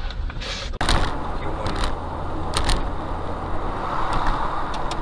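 Car driving on a highway, heard from inside as recorded by a dashcam: steady road and engine rumble that starts abruptly about a second in, with a few sharp knocks.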